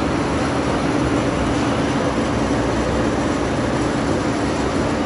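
PET bottle label remover machine running: a steady mechanical rumble with a constant hum.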